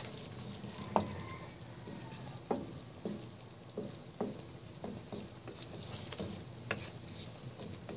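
Wooden spatula stirring a cream sauce in a nonstick pan, making light, irregular taps and scrapes against the pan over a faint sizzle of the sauce cooking.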